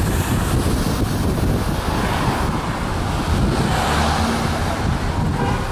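Street traffic heard from a moving vehicle, with wind rushing over the microphone. A large vehicle passes close by about four seconds in.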